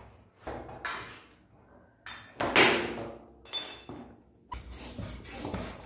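Bicycle tyre being worked onto its aluminium rim by hand: a series of rubbing, creaking and knocking sounds as the rubber is pushed and seated against the rim, with a short high ring about three and a half seconds in.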